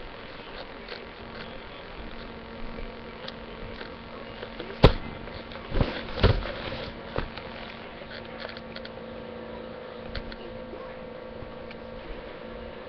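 Steady low hum picked up by a webcam microphone, with handling noise: one sharp click about five seconds in and a couple of knocks a second later, plus a few faint ticks.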